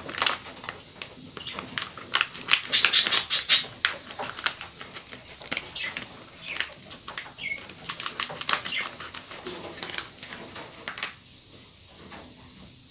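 A plastic-foil Cerelac cereal sachet crinkling and crackling as it is handled and opened, in irregular bunches, busiest in the first half and again around the middle, then going quieter near the end.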